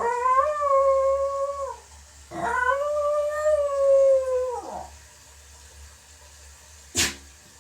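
Parson Russell terrier howling (singing) in two long held howls, the second longer and falling in pitch as it ends. A single short, sharp sneeze comes near the end.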